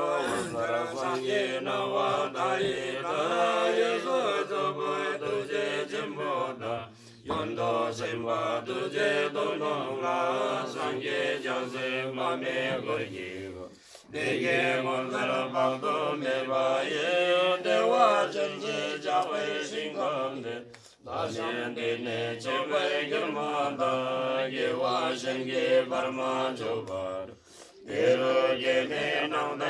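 Buddhist monks chanting prayers: male voices in a steady, droning recitation. The chant breaks off in short pauses about every seven seconds.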